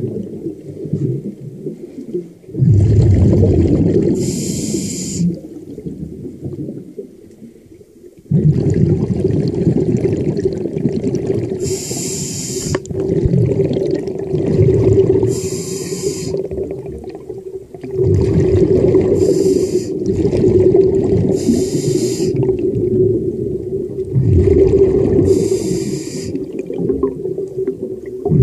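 Scuba diver breathing through a regulator underwater: a short hiss on each inhale every few seconds, and a long bubbling rumble with a steady hum on each exhale.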